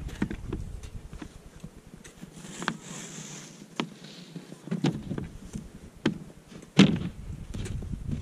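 Plywood floor panels being handled and set down on snowy ice: a string of hollow wooden knocks and thumps, the loudest about two-thirds of the way through. A steady low rumble of wind on the microphone runs underneath.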